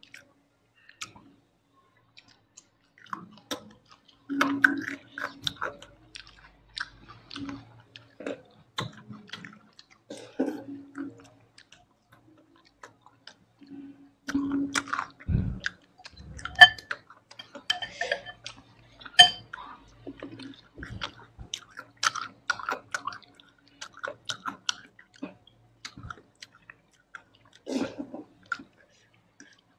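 Close-miked eating sounds: wet chewing and lip-smacking on mouthfuls of food, in irregular bursts of sharp clicks and sticky squelches. There is a noodle slurp near the end.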